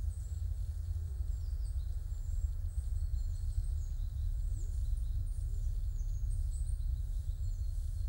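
Small birds chirping, with short, high, thin calls scattered through, over a steady low rumble.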